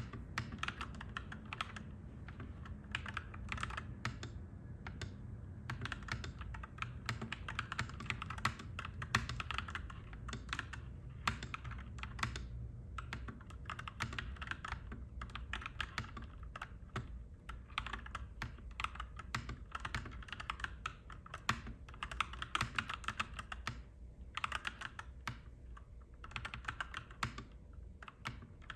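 Clacky mechanical keyboard being typed on in quick runs of keystrokes with short pauses between them, over a steady low rumble.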